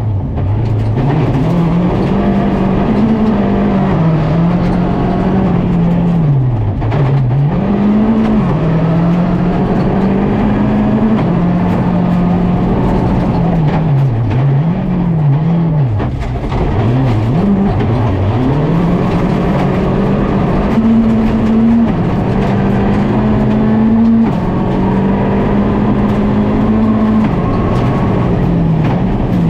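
Volkswagen Polo GTI R5 rally car's 1.6-litre turbocharged four-cylinder engine driven hard on a stage. Its pitch climbs through the gears, then falls off sharply and picks up again several times as the car lifts and brakes for corners.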